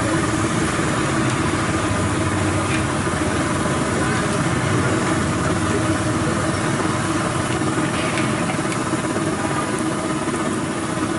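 Hot oil sizzling steadily in a large kadai as rice-flour janthikalu deep-fry, over a constant engine-like drone.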